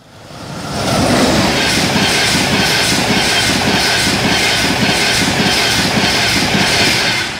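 A train passing close at speed, its wheels clattering rapidly over the rails. The noise builds over the first second, holds steady and loud, then drops away near the end.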